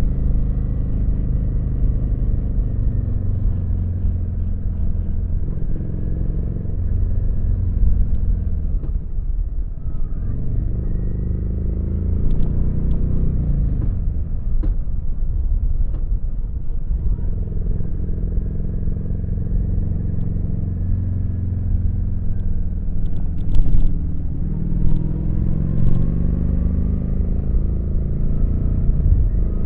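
Kawasaki VN900's V-twin engine running while riding, its pitch easing off and building again twice as engine speed changes, under a steady low rumble. A few brief knocks come about three quarters of the way through.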